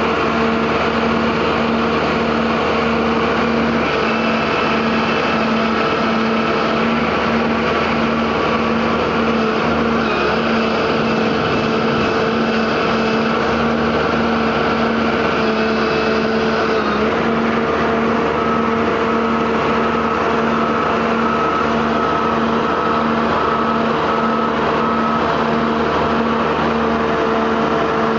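Engine of a self-propelled sour cherry harvester running steadily at constant speed, heard from the driver's seat, with an even, unchanging hum.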